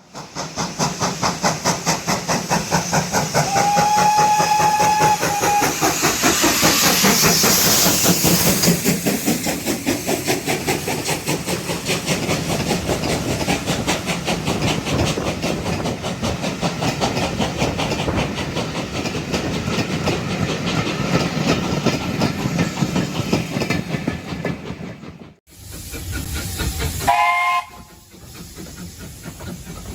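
Steam locomotive working hard as it passes, with rapid, even exhaust beats over rail clatter and hiss. A steady whistle blast lasts about two seconds, starting some four seconds in. After a sudden break near the end, there is a brief second whistle.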